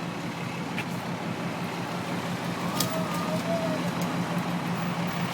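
A vehicle engine idling, a steady low hum with a few faint clicks.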